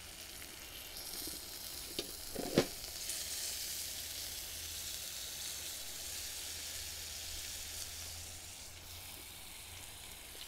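Fat and juices sizzling on the hot Cobb Premier grill as the roast chicken is lifted off it: a steady hiss that builds about a second in and eases near the end. A sharp clink about two and a half seconds in, with a lighter click just before it.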